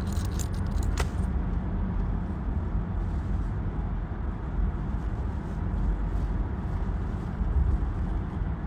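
Steady low rumble of a car on the move, heard from inside the cabin through a phone microphone, with a single sharp click about a second in.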